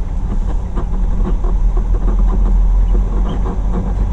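Semi-truck's diesel engine running with a steady low rumble while the truck is maneuvered at low speed, with scattered clicks and rattles over it.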